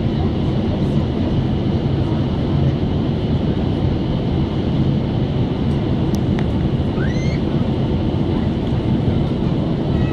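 Steady cabin noise of a Boeing 767-300 in flight, heard from a window seat over the wing: the deep, even rush of engine and airflow.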